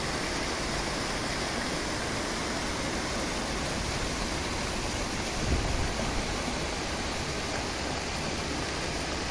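Garden fountain jets splashing into a pool and water spilling over stepped basins: a steady rushing of water, with a brief low bump a little past halfway.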